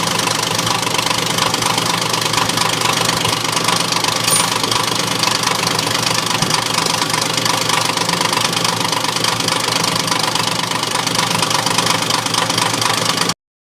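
Machinery running steadily with a rapid knocking, then cutting off abruptly near the end.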